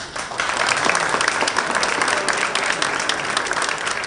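Crowd applauding: many hands clapping, starting suddenly just after the start and carrying on steadily.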